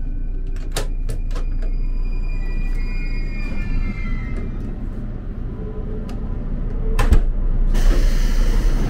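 Latch and handle of a 787-series train's compartment door clicking several times as the door is opened, over the steady low rumble of the train. A louder click comes about seven seconds in as the door shuts, and a steady hiss starts just after.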